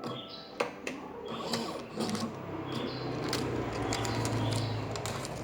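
Standalone queue-ticket machine's printer running: a few clicks, then from about two seconds in a steady mechanical buzz of the paper feed that grows louder as the ticket prints.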